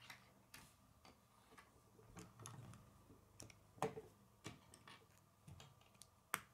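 Plastic K'nex rods and connectors clicking and snapping together as they are fitted by hand: a string of irregular light clicks, with sharper snaps about four seconds in and near the end.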